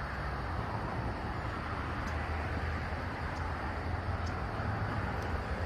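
Steady low rumble and hiss of outdoor background noise, with a few faint high ticks.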